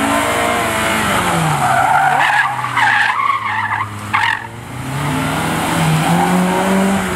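Honda Civic Type R EK9's 1.6-litre VTEC four-cylinder engine worked hard through a tight turn, its revs falling about a second in and climbing again near the end. In the middle the tyres squeal for about three seconds in broken spurts as the car slides through the corner.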